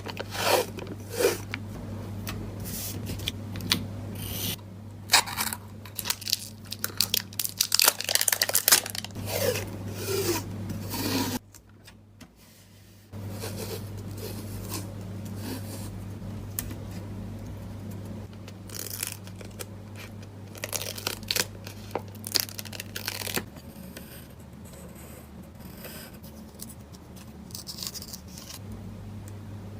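Paper-crafting handling sounds: paper, stickers and tape rustling, tearing and rubbing in short irregular strokes, with small clicks, over a steady low hum. The strokes are busiest and loudest in the first ten seconds and break off for a moment around the middle.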